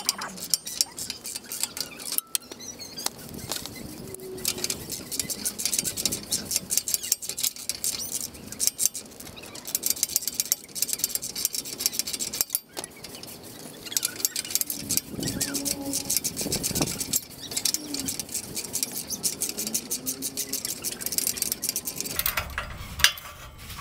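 Socket ratchet wrench clicking in quick runs with short pauses as it spins an exhaust nut off a stud at the tail-pipe end of a catalytic converter.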